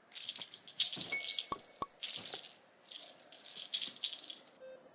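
Jingling rattle of a handmade cat teaser toy being shaken, in two bouts of about two seconds each, with two sharp clicks near the middle of the first.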